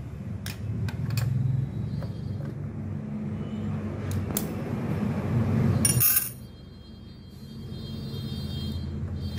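Sharp metallic clicks of a hand tool working the mounting bolts of an AC servo motor, over a steady low rumble. A louder clatter comes about six seconds in.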